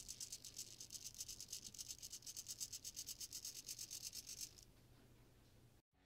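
SG90 micro servo's small gear motor turning in fine steps, giving a faint, rapid, even ticking buzz as the calibration sketch sweeps it from 180 toward 0 degrees; it stops about four and a half seconds in.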